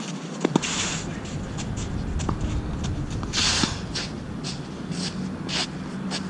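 Tennis rally: sharp pops of racket strings striking the ball, the two loudest about half a second in, with shoes scuffing and sliding on the court surface, one longer scrape about three and a half seconds in. Wind rumbles on the microphone throughout.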